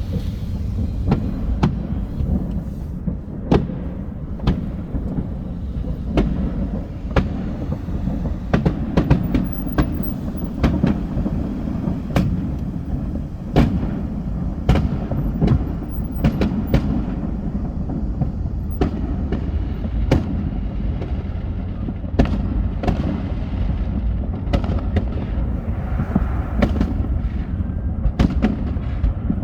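Fireworks show: aerial shells bursting in quick, irregular succession, many sharp bangs and crackles over a continuous low rumble.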